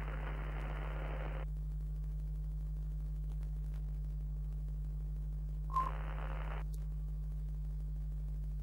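Retro television sound effect: a steady low electrical hum, with a burst of static hiss at the start and a shorter burst about six seconds in that carries a brief beep.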